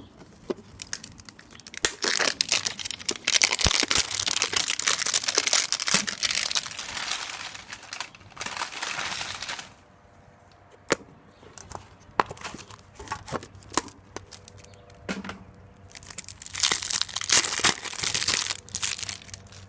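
A trading-card pack wrapper being torn open and crinkled in two long bouts of dense crackling, with scattered clicks and taps between them.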